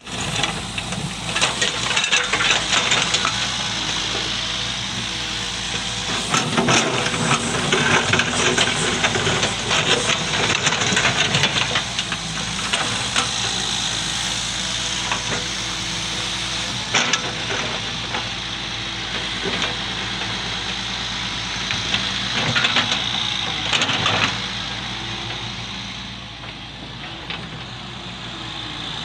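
Volvo EW145B wheeled excavator's diesel engine running under work as it digs, with a steady hiss over the engine and a few sharp knocks as the bucket and arm move through the soil. It eases a little near the end.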